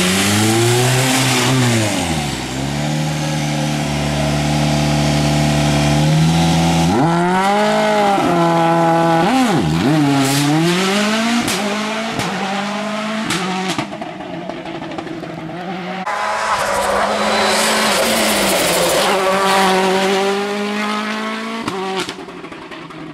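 Citroën DS3 WRC rally car's turbocharged four-cylinder engine at full test pace, its revs swooping up and down sharply through gear changes and holding steady for a few seconds in between. Sharp cracks from the exhaust come around the middle, and the engine fades as the car drives away near the end.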